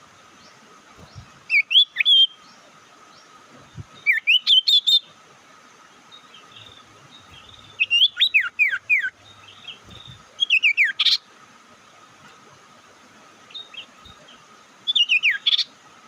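Tailorbird (sirtu) calling: five short bursts of rapid, sharp, downward-sliding notes a few seconds apart, a lure call. A faint steady hum runs beneath.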